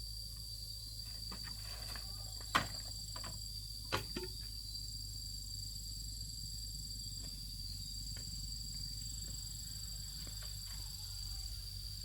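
Insects calling with a steady high-pitched drone over a low hum, broken by two sharp knocks about two and a half and four seconds in.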